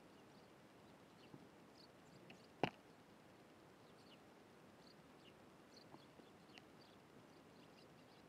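Faint, scattered short chirps of Eurasian tree sparrows, with one sharp knock about two and a half seconds in.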